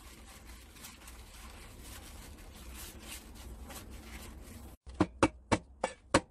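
Paper towel rustling as it is rubbed over the skin of a raw whole chicken to dry it. About five seconds in, a cleaver starts striking ginger on a wooden cutting board: sharp knocks, about three to four a second.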